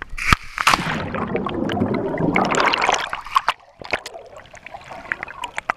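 A person in a life jacket going into the water with a sharp splash about half a second in. This is followed by loud churning and bubbling water as the camera goes under, which settles into softer gurgling and trickling near the end.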